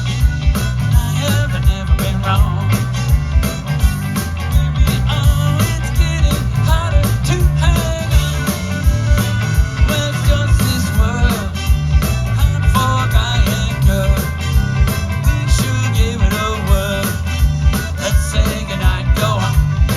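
Background music: an upbeat rock-and-roll song with a steady beat, bass line and singing.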